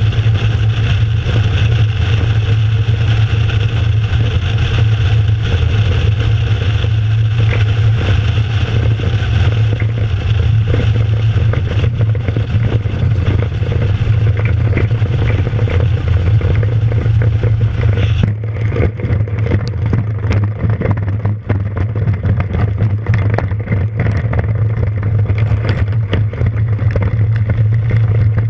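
Kitfox light aircraft's Rotax 582 two-stroke twin engine and propeller running steadily with a low drone, with air rushing past the airframe. About two-thirds of the way through the rushing hiss drops away suddenly and irregular knocks and rattles join the engine as the wheels roll over the grass strip after landing.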